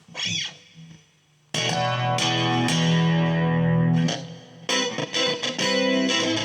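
Fresher Straighter FS-331S electric guitar, a Japanese-made Strat-style instrument, played with a clean amp tone. A short falling glide comes near the start. About a second and a half in, a chord is struck and left to ring, and from near the end strummed chords repeat in a steady rhythm.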